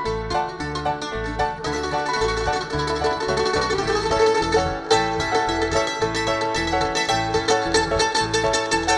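Live folk band playing an instrumental break: quick plucked-string picking over a steady, regular bass line.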